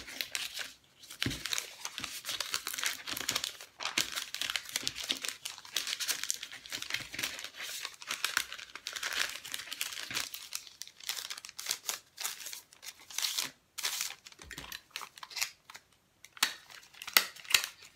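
Sheets of printed book paper rustling and crinkling as they are folded back and forth into a fan. Near the end, a few sharp clicks from a desktop stapler.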